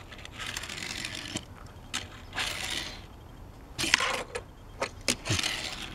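Hot Wheels die-cast Range Rover Classic toy car pushed and rolled across a tabletop, its small wheels running over the surface. There are several short rolling runs of about half a second each, with a few light clicks and taps between them.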